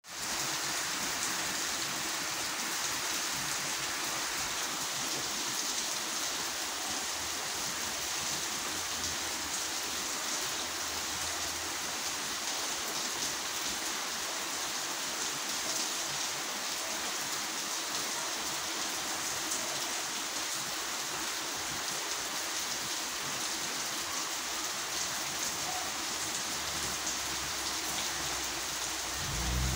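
Steady rain falling on a waterlogged street, an even hiss that does not let up.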